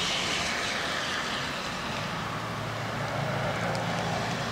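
Background traffic: a steady hiss, joined about two seconds in by a low engine hum.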